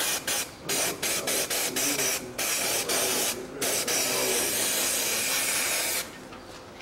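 Aerosol can of spray lubricant hissing as bolts are coated: a quick series of short spurts, then longer sprays that stop about six seconds in.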